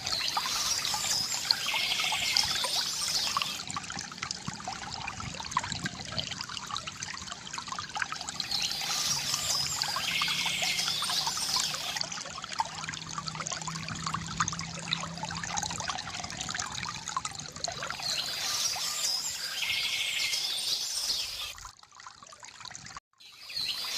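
Water trickling and splashing steadily from a bamboo fountain, with birds chirping in short bursts that come back every nine or ten seconds. Near the end the sound drops away almost to silence for about a second and a half, then resumes.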